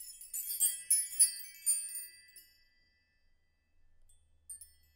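A short intro jingle of high, tinkling chime notes struck in quick succession, ringing and fading out about two seconds in.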